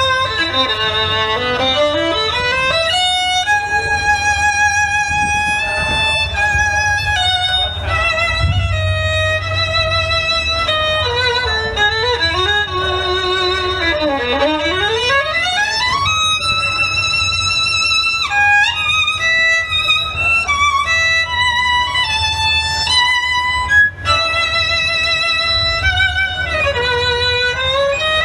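Solo violin playing a slow melody with vibrato and several long slides down in pitch and back up.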